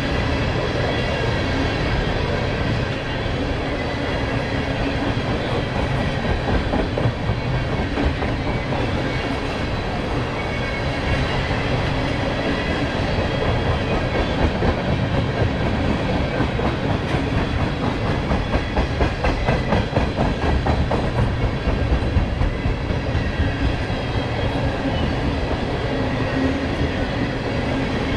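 Freight train of empty ethanol tank cars rolling past, its steel wheels clicking and clanking over the rail joints over a steady rumble. The clicking is loudest and most rhythmic through the middle stretch.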